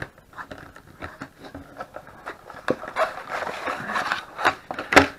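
Cardboard product box being opened and emptied by hand: paper and cardboard rustling and scraping with scattered clicks, busiest toward the end, then one sharp knock just before the end.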